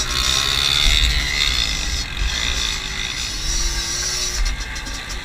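Small 50cc moped engines buzzing at high revs through a race, the pitch rising and falling as the throttle changes, with wind rumble on the microphone.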